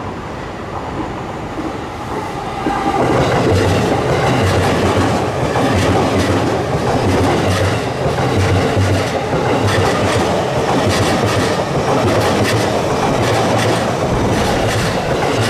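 JR Chuo Line rapid E233-series electric train approaching and then passing close by. The wheels clack rhythmically over the rail joints. The sound gets much louder about three seconds in as the train comes alongside.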